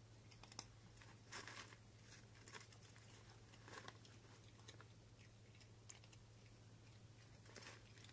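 A cat crunching dry Greenies cat treats: faint, irregular crunches as it chews, a handful of them spread over several seconds.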